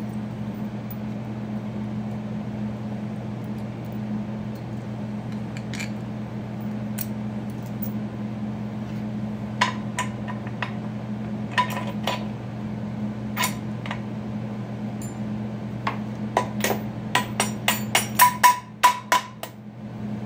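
Loose bolts and steel brackets clinking now and then. Near the end comes a quick run of ringing metal taps, about four a second, as a small hammer drives a bolt through the wheel-kit bracket on the snowbike ski. A steady low hum runs underneath.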